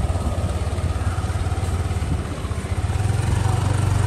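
Motor scooter engine running at low speed close by, a steady low hum that grows louder about three seconds in as the scooter draws alongside.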